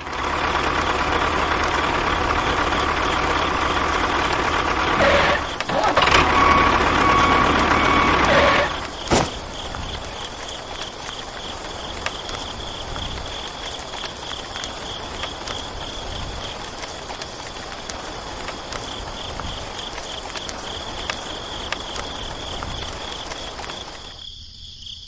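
Motorized vehicle running steadily. It is loud for the first nine seconds or so, then drops to a quieter steady running sound with a high, wavering whine.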